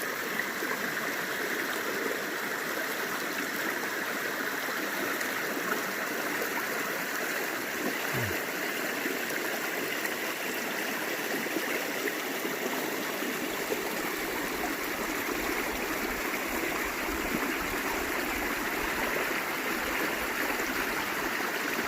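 A mountain creek rushing steadily over rocks.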